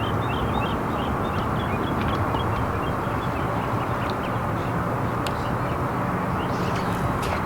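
Boat motor running steadily with wind noise, and birds chirping over it in the first couple of seconds.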